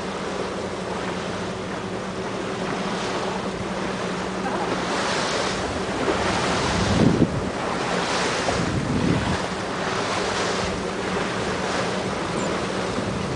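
Wind buffeting the microphone and water lapping around a small boat on a calm sea, with a faint steady low hum underneath. The wind swells in several gusts from about five seconds in.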